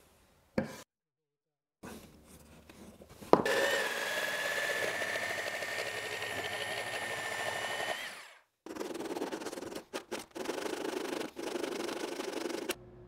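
Corded jigsaw starting suddenly and running steadily for about five seconds with a steady whine as it cuts a curve into the end of a wooden fence picket. After a short break, sandpaper is rubbed by hand over the freshly cut rounded edge in uneven strokes.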